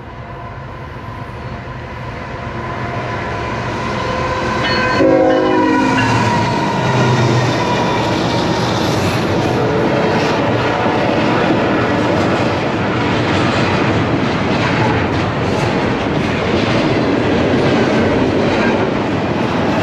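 A CN double-stack container freight train coming up and passing close by. Its horn sounds as it comes up, dropping in pitch as the locomotives pass about five seconds in. Then comes a steady loud rumble with the clickety-clack of wheels over rail joints as the container cars roll by.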